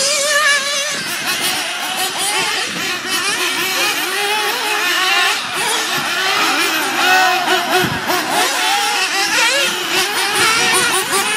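Several nitro RC buggies' small two-stroke glow engines screaming at high revs together, each pitch rising and falling as the cars accelerate and brake through the turns.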